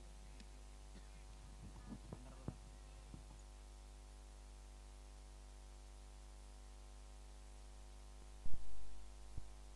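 Steady electrical mains hum on the commentary audio, with a few faint clicks in the first three seconds and one loud thump about eight and a half seconds in, followed by a smaller knock.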